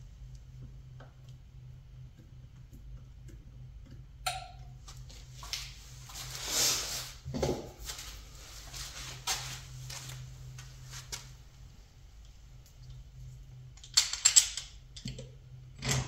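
Scattered workshop handling noises: a click about four seconds in, a scraping rustle, a low knock, then a burst of sharp clicks and rattles near the end, over a steady low hum.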